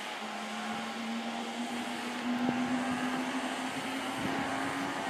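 An electric train accelerating away, its motor whine rising slowly and steadily in pitch.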